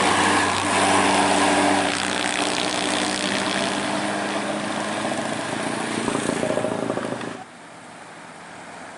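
Tour bus driving by with its engine running as a loud, steady drone. The sound drops off suddenly about seven and a half seconds in.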